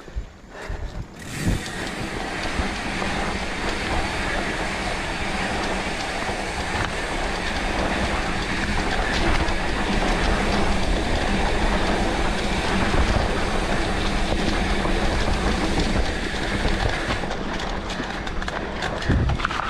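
Mountain bike rolling fast down a dry dirt trail: a steady rumble of tyres on the ground with the chain and frame rattling over the bumps, starting about a second in and easing near the end.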